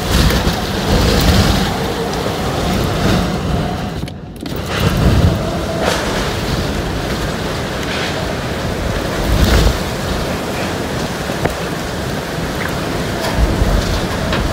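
Hurricane-force wind and driving rain in a hurricane eyewall: a loud, continuous rushing noise, with gusts buffeting the microphone several times, heaviest about nine and a half seconds in. The sound drops away for a moment about four seconds in.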